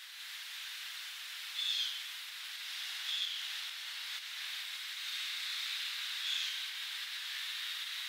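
Steady high-pitched drone of a summer insect chorus, with three short high chirps about one and a half, three and six seconds in.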